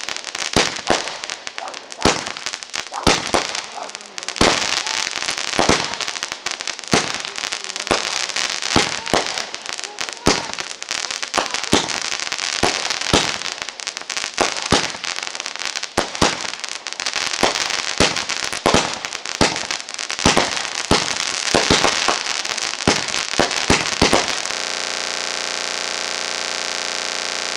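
Fireworks finale: a rapid, continuous barrage of aerial shells bursting, with many sharp bangs over a steady crackle. About three seconds before the end it cuts off abruptly into a steady hiss.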